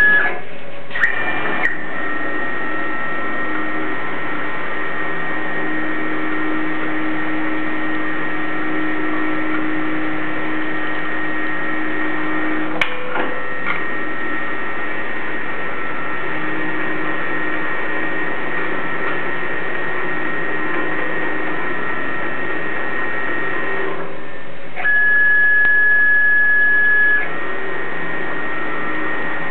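CNC milling machine running a tapping cycle for M3 x 0.5 holes: a steady mechanical whine with several held tones from the spindle and axis drives, a short click about 13 seconds in, and a louder, higher whine for about two seconds near 25 seconds.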